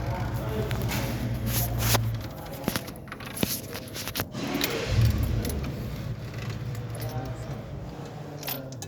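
Ford Taurus engine running, stopping about two seconds in and running again from about five seconds in, with metallic jingling and clinks over it.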